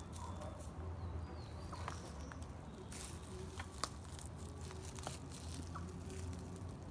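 Faint footsteps of a Sitka black-tailed deer walking over twigs and forest litter: scattered light ticks and rustles over a low steady rumble.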